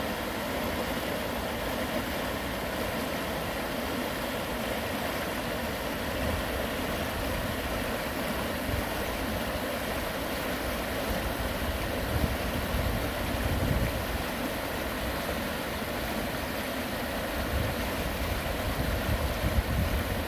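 Stream water rushing steadily after rain. Low gusts of wind buffet the microphone about halfway through and again near the end.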